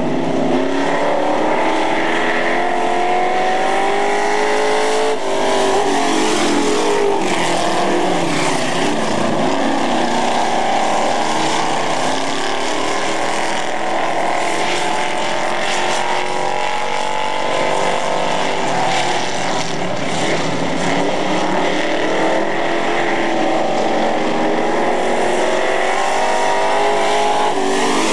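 Racing engines of dirt-track super trucks (pickup-bodied race trucks) running hard on the oval, their pitch rising and falling over and over as the trucks accelerate and back off, over a steady hiss of track noise.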